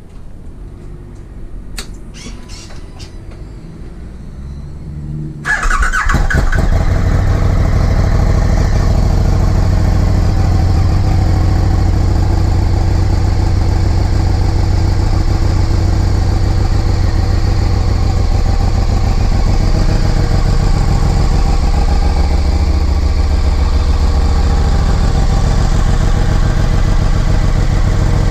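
KTM 1290 Super Duke GT's V-twin engine started through a new aftermarket slip-on silencer. A few clicks come first, then about five seconds in it catches and settles into a loud, steady idle.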